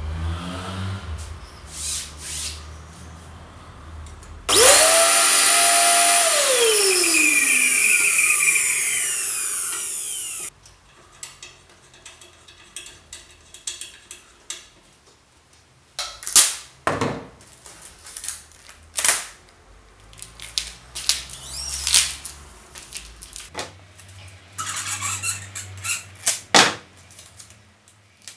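A power drill runs for about six seconds, its motor note rising quickly and then sinking steadily as it slows, typical of driving in a screw. It stops abruptly, followed by scattered sharp knocks and clicks of the screen-printing frame and its clamps being handled.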